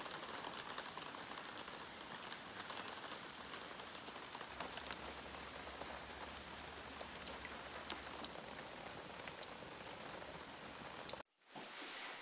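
Steady light rain falling on leaves and into standing water, an even hiss full of small drop ticks, with one sharper drop about eight seconds in. The rain cuts off abruptly about eleven seconds in.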